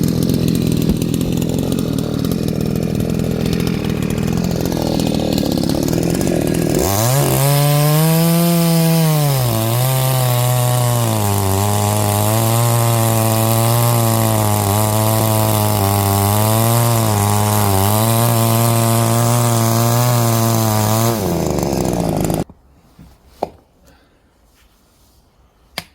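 Chainsaw engine running, then cutting into wood under load: about seven seconds in its pitch rises and falls, then holds low and wavers as it bites through the log. It cuts off suddenly near the end, followed by a few sharp knocks of wood.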